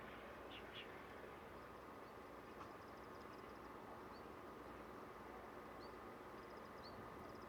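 Quiet outdoor ambience: a steady low hum, with faint rapid high-pitched insect trills and a few short bird chirps.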